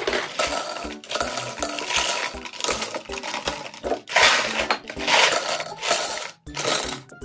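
Dubble Bubble gumballs pouring from a cardboard box into a glass vase, rattling and clinking against the glass in uneven waves as the box is tipped.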